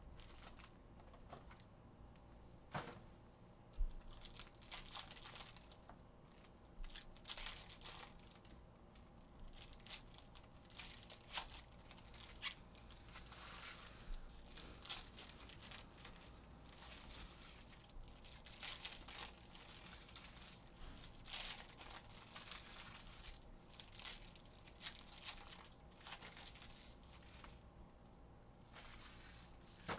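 Trading card pack wrappers being torn open and crinkled by hand, with the cards inside handled and stacked: a long run of short, quiet rustles and tears.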